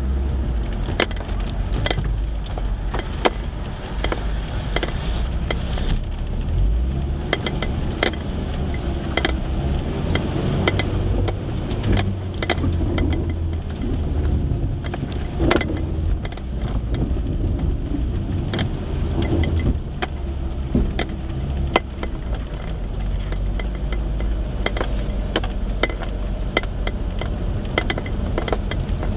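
Suzuki Vitara 4x4 crawling over rutted mud, heard from inside the cab: a steady low engine rumble that rises and falls with the throttle, with frequent irregular knocks and rattles from the vehicle being jolted.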